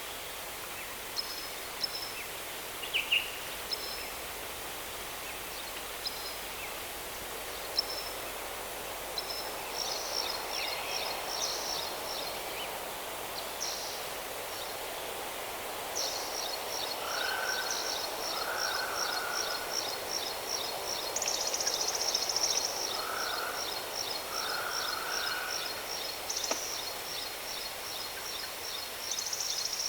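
Steady rushing of a waterfall under birdsong: scattered short high chirps in the first half, then from about halfway a fast high trill that runs on, with a few shorter lower calls repeating over it.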